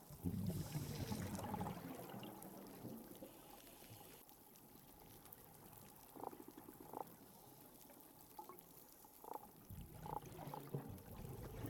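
Hydrophone recording of a Caribbean reef: a low watery rush in the first couple of seconds, then a handful of short pulsed grunts from croakers and sea robins, spread over the rest. Snapping shrimp crackle faintly in the background.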